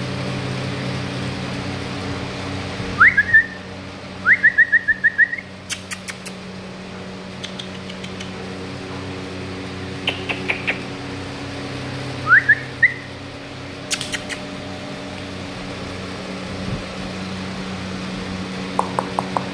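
Short whistles that sweep up to a high note, three times, once running into a quick trill of about eight chirps, over a steady low mechanical hum. A few sharp clicks come in between.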